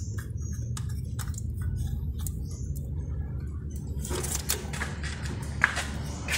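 Light metallic clicks and scraping of a wrench and a bolt being worked loose on an engine's oil breather housing, over a steady low rumble. From about four seconds in it turns into a brighter scraping with a few sharper clicks, one loud click near the end.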